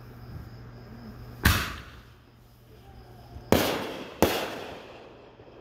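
Aerial fireworks bursting: one sharp bang, then two more in quick succession about two seconds later, each fading out over about half a second.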